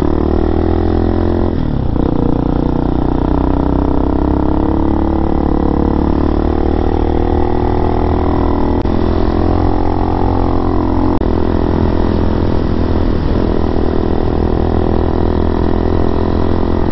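RPS Hawk DLX 250's single-cylinder, air-cooled, fuel-injected four-stroke engine running under way, its note rising and falling with the throttle. The note dips briefly about two seconds in and again around thirteen seconds.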